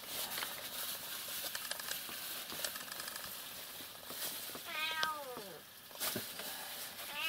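Domestic cat meowing: one drawn-out meow falling in pitch about five seconds in, and a second beginning at the very end, with faint clicks and rustling in between.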